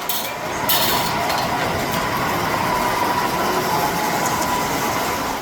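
Steady rushing train noise from the miniature railroad layout, swelling about a second in and falling away near the end.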